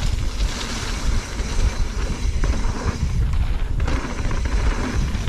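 Wind buffeting a chest-mounted action camera's microphone while a mountain bike rolls fast down a dirt trail, its tyres crunching over the ground, with a few short knocks and rattles from the bike.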